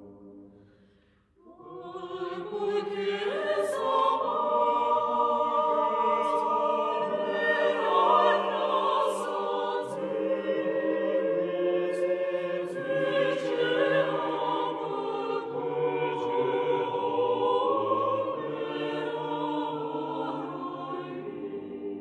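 Mixed choir singing an Armenian choral work: a phrase dies away in the first second, then after a brief pause the voices come back in and swell into full sustained chords that move slowly for the rest of the time.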